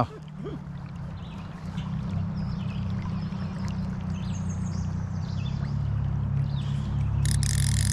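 River water flowing steadily around a wading angler, with a brief high buzzing burst near the end.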